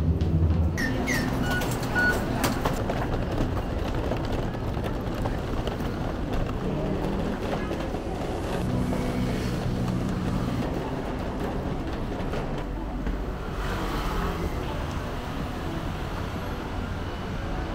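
Railway station ambience: a steady rumble and hum with crowd noise as people walk off the platform, and a couple of short high beeps about two seconds in.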